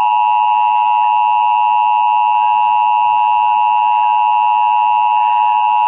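Emergency Alert System attention signal: a loud, steady, unbroken dual-tone beep pitched near 1 kHz.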